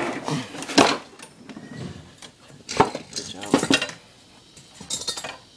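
Scattered metal clinks and knocks, a few sharp ones a second or so apart, as a Honda lawn mower engine and its parts are handled and worked loose.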